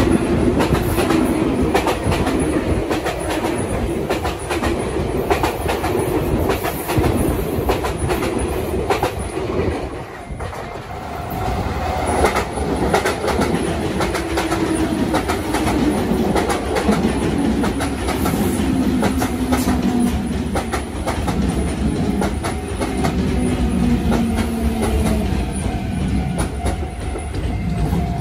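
Sotetsu electric commuter trains passing close by. The first train's rumble and wheel clatter fade about ten seconds in. A second train, a navy-blue Sotetsu 9000 series, then rolls past with wheels clicking over rail joints and a motor whine that falls steadily in pitch as it slows, and a steady whine comes in near the end.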